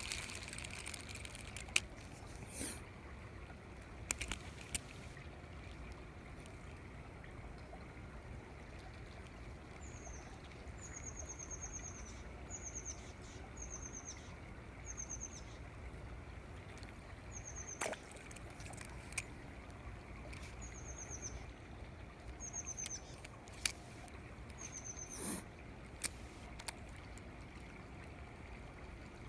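A small bird repeating short, high rising chirps, about a dozen of them in the second half, some in quick pairs. Scattered sharp clicks and knocks come and go over a low steady rumble.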